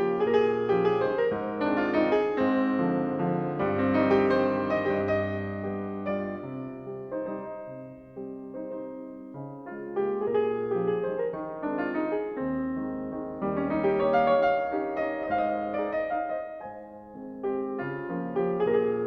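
Slow piano music, played in phrases that swell and ease off, dropping softest about eight seconds in and again near the end.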